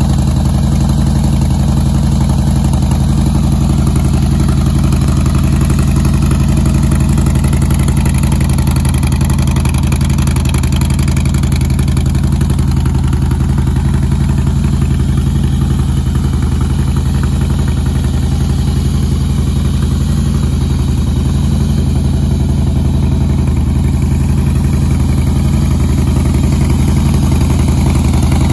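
2014 Harley-Davidson Softail Deluxe's V-twin engine idling steadily, with no revving.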